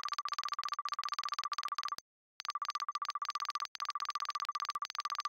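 Electronic text-typing sound effect: a rapid, even train of pitched ticks, many per second, with a short pause about two seconds in before it resumes.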